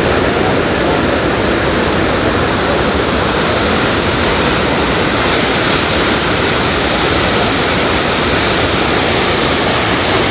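Roar of a large waterfall, the Rhine Falls: a loud, steady rush of falling and churning water with no let-up.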